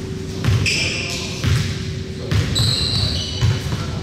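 A basketball being dribbled on a gym floor, thudding about every half second. Two short, high-pitched squeaks come in, one at about half a second and one at about two and a half seconds.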